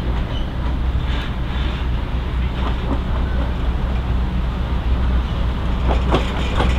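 Diesel-hauled passenger train running: a steady low rumble with wheel and rail noise, and a few sharp clicks near the end.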